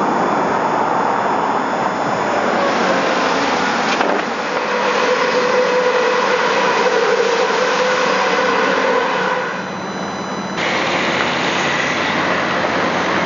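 Tram running, a loud steady rushing noise with a faint hum. The sound changes abruptly about four seconds in and drops briefly near ten seconds.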